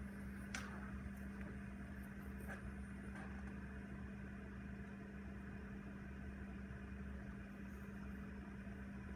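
Sovol SV06 Plus 3D printer humming steadily while it runs its auto Z-align routine, the gantry moving on its Z lead screws. A sharp click comes about half a second in, and fainter ticks come around two and a half and three seconds in.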